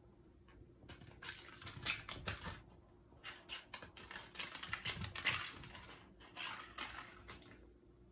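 A kitten batting and chasing a small white toy across a hard floor: rapid clicking and skittering of claws and toy on the boards, in busy clusters that stop about half a second before the end.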